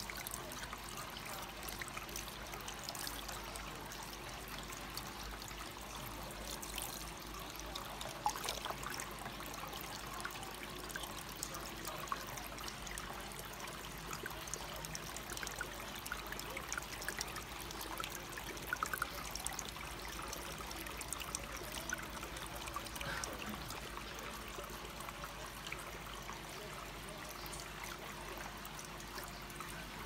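Small resin tabletop water-wheel fountain: a thin stream of water trickling steadily from a faux-wood flume onto a plastic water wheel and into its basin, with small splashes.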